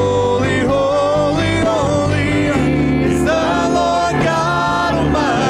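Live church worship band playing a slow praise song, with singers holding long notes over keyboard, guitars and congas.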